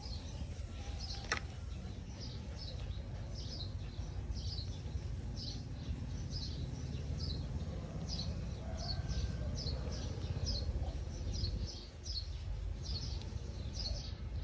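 A bird chirping over and over, short high notes at about two a second, often in pairs, over a steady low rumble. A single sharp click about a second in.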